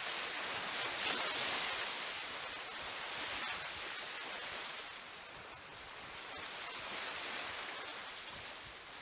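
Small estuary waves breaking and washing up a sandy beach, a steady hiss of surf that swells and fades in slow surges, loudest about a second in and again around seven seconds.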